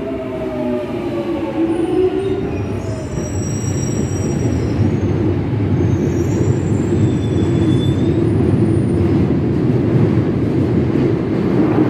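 London Underground Jubilee line 1996-stock train running along the platform: the whine of its traction motors falls in pitch and dies away about a second in, then a steady rumble of wheels on rail, with a faint high squeal in the middle.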